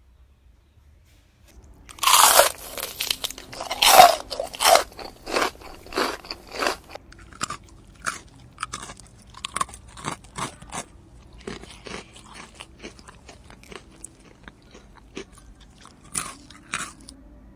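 A kitten chewing and biting on leaves and stems, making irregular crunching sounds that start about two seconds in, come thick and loud at first, then grow sparser.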